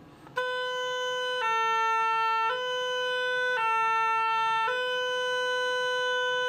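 Oboe playing a B–A–B–A–B finger exercise in one breath, about a second per note with no breaks between them, ending on a long held B. It is a beginner's drill changing between B and A by moving only one finger.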